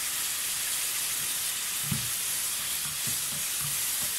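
Green chillies and spiced masala sizzling steadily in a frying pan on a gas flame, with yogurt just poured on top. From about two seconds in, a spoon stirs the mix with short knocks against the pan.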